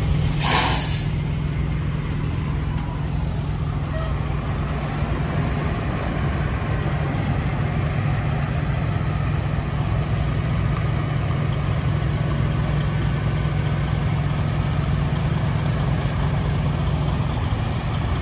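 Semi-truck diesel engine running steadily at low revs, with a brief air hiss about half a second in.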